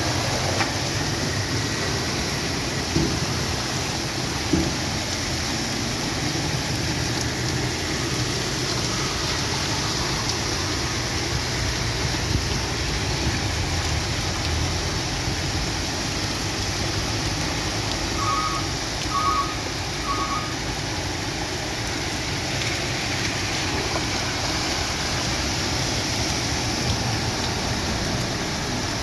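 Heavy rain pouring steadily onto a flooded street, mixed with cars and trucks driving through the standing water. Three short beeps come about two-thirds of the way through.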